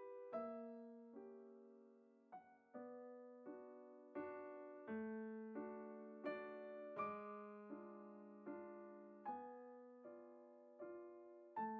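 Quiet background piano music: soft chords struck about every three quarters of a second, each note fading away.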